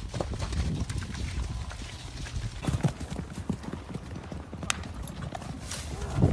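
Hoofbeats of hunt horses galloping and jumping fences and hedges on grass, a run of irregular dull thuds, with one sharp click about two thirds of the way through.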